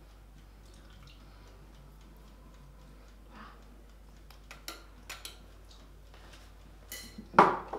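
Kitchen handling sounds: a spoon and small glass jar clinking lightly over a metal baking tray, a few scattered clicks, then a louder knock as something is set down on the counter near the end.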